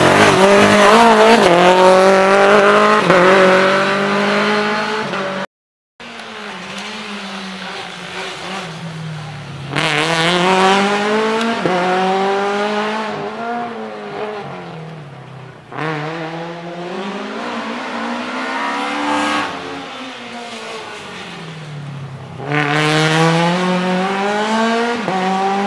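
Rally car engines revving hard through tight corners: the engine note climbs and drops again and again as the driver accelerates, shifts and lifts. A short silent cut about five seconds in, then another car, a Lada saloon, working through the corners with its revs rising and falling about every three seconds.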